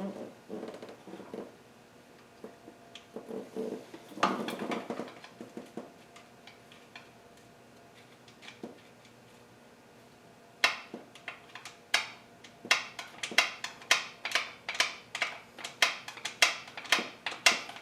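Metal tools clattering a few seconds in, then from about two-thirds through a run of sharp metallic clicks, two to three a second and quickening: a ratchet wrench working the bolts of a Nissan KA24DE's upper oil pan.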